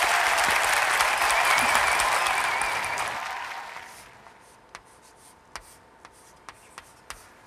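Studio audience applauding, fading out over the first four seconds or so. Then chalk tapping and scratching on a chalkboard as a word is written: about six short, sharp clicks.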